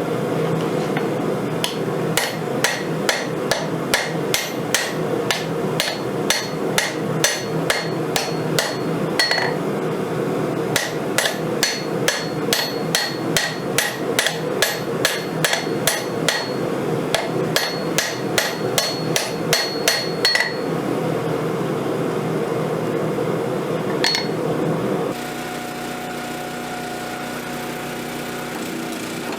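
Hand hammer striking hot steel on an anvil, about two to three blows a second with a bright ring after each, in two long runs with a short pause between them and one last blow near the end. A steady roar runs underneath, giving way near the end to a quieter steady hum with a few held tones.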